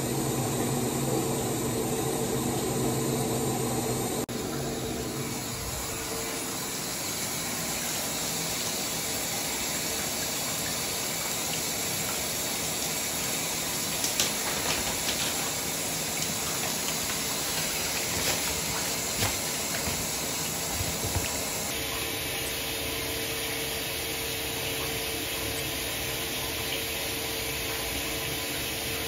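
Steady rush of running water splashing into a bathtub, with a few faint small knocks in the middle.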